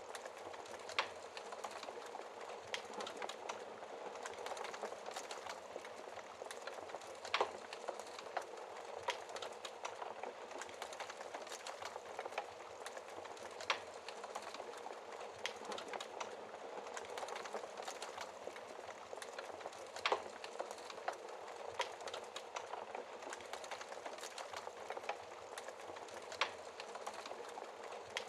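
Wood fire burning in a fireplace: a steady crackle of small snaps, with a sharper, louder pop every five or six seconds.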